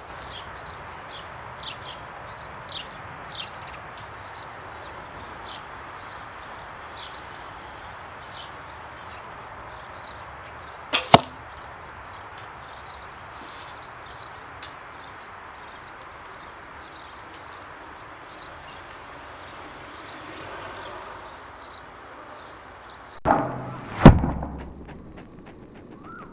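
Two arrows loosed from a 42 lb Scythian bow, each a sharp crack: one about eleven seconds in and a louder one with a deeper thud near the end. A small bird chirps about once a second in between.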